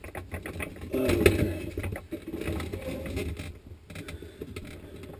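Plastic freezer basket rail and its toothed rack being handled and pushed against the mounting, a run of light clicks and rattles that thins out after about three seconds. The new rail will not seat: it is the wrong part.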